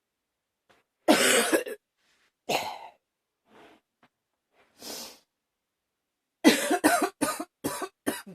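A woman coughing: a long harsh cough about a second in, a second cough soon after, a quiet breath, then a rapid fit of about six coughs near the end.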